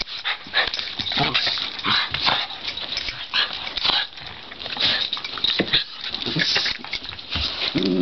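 Two cairn terriers play-wrestling: a busy, irregular run of short scuffling and snuffling noises from the dogs.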